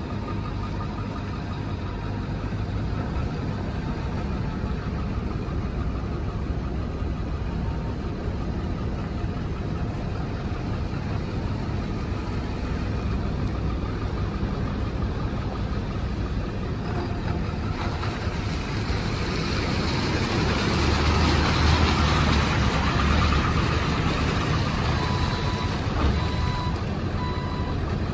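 Ford 7.3L Powerstroke V8 diesel running in a pickup as it drives slowly over a wet, muddy lot, a steady low rumble that grows louder about two-thirds of the way through as the truck comes closer. A repeating beep, like a backup alarm, sounds near the end.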